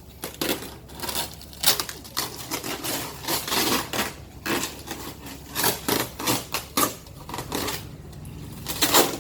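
A large cardboard shipping box being handled, with irregular rustles, scrapes and knocks of cardboard and packing tape.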